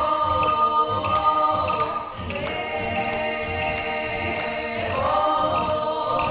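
Choir singing long held chords, with the voices sliding up to a new chord about five seconds in.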